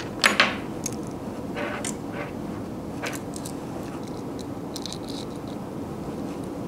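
Handling noises of a compound crossbow being set up on a table: a double knock as the crossbow is set down just after the start, then scattered small clicks and scrapes as the sling strap's clips and swivels are fitted.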